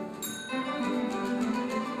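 Guitar ensemble playing a fast plucked passage that breaks off briefly, with a single high bell ding, the typewriter bell of the piece, ringing out about a quarter second in before the guitars pick up again.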